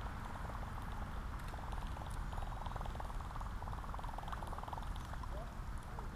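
Fishing reel being cranked, a fast fine whirring tick, over a steady low rumble of wind on the microphone.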